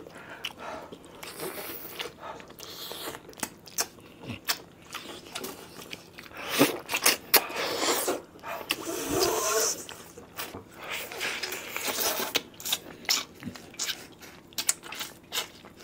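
People biting and chewing braised chicken heads by hand, with irregular crunches that are busiest and loudest in the middle.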